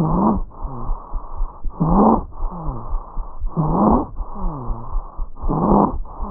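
Lung sounds heard through a stethoscope: four fast breaths, about one every two seconds. Each breath is a loud, harsh inhalation followed by a longer exhalation carrying low musical tones that slide down in pitch, the continuous adventitious sounds of wheezing or rhonchi.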